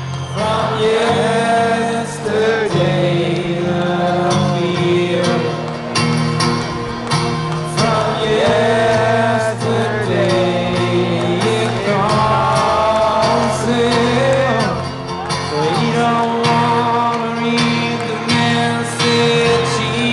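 Acoustic guitar strummed in steady chords under a male voice singing long, held notes, amplified through a concert PA.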